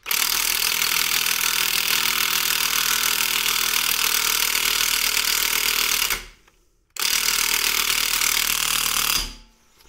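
Cordless impact wrench hammering as it runs a new hub nut onto a car's rear stub shaft after a wheel bearing replacement. Two bursts: a long run of about six seconds, a brief pause, then about two more seconds.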